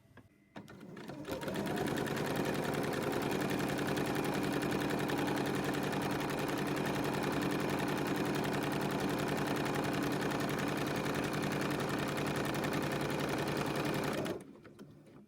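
Sewing machine stitching a seam through fabric. It picks up speed over the first second or so, runs at a steady fast rate, and stops about a second before the end.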